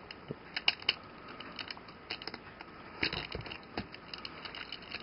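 Plastic parts and joints of a Transformers action figure clicking and creaking as they are twisted and pulled during its transformation, a few light clicks with a louder cluster about three seconds in.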